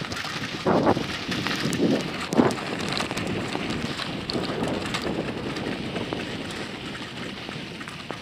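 Bicycle rolling fast over a rough dirt track, the tyres crunching and the bike clattering over bumps, with wind rushing over the microphone. A few louder knocks come in the first couple of seconds, and the sound slowly fades toward the end.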